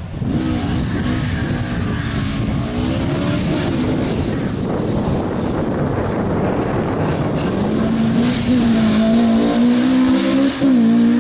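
Ford Escort Mk2 rally car's engine revving hard as it launches from the sprint start and accelerates away, its pitch climbing and dropping through gear changes. Late on it holds a strong high pitch, broken by one brief dip near the end.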